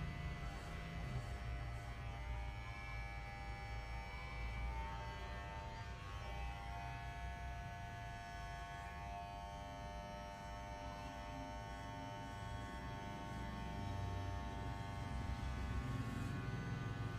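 Electric hair clippers buzzing steadily as they shave a head down close to the scalp.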